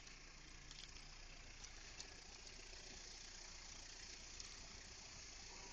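Faint, steady engine hum with a few light ticks.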